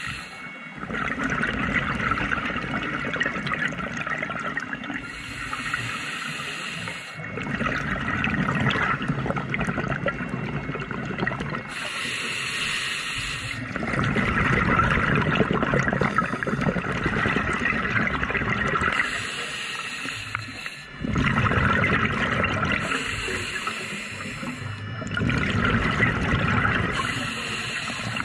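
Scuba diver breathing through a regulator underwater: a short hiss on each inhale, then a long stretch of bubbling exhaust bubbles on each exhale. About five breaths, one every four to seven seconds.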